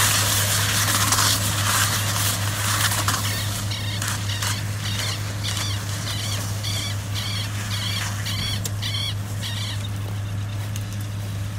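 A tractor pulling a round baler-wrapper runs steadily with a low hum, growing slowly fainter as it moves off. From about three and a half seconds in, a run of about nine short high chirps, roughly one and a half a second, sounds above it.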